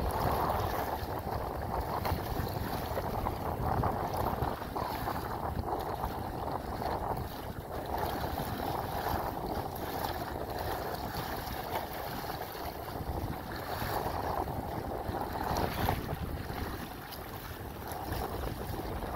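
Wind buffeting the microphone over choppy water slapping and splashing against the bow of a kayak as it drives into the waves. The noise swells and eases throughout, with no steady motor tone standing out.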